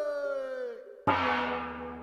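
Pigeon whistles sounding with a slowly falling pitch and fading away. About a second in, a hanging bell is struck once and rings on, slowly dying away.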